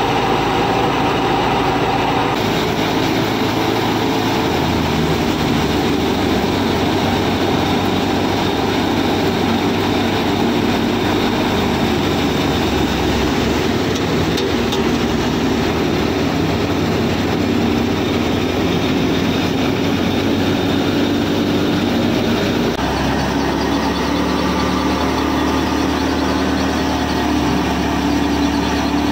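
Miniature model thresher running steadily, its drive pulley and threshing drum turning as it threshes wheat, giving a continuous mechanical hum. The tone of the hum shifts about two seconds in and again about three-quarters of the way through.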